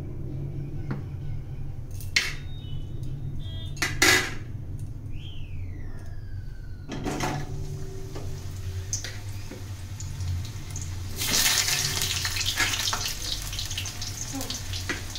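Peeled potatoes frying in hot oil in an aluminium kadai: a couple of sharp knocks of the pan, then sizzling starts about seven seconds in and grows louder a few seconds later, over a low steady hum.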